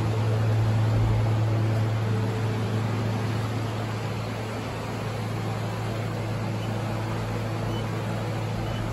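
A steady low mechanical hum under an even rushing air noise, like a running ventilation fan.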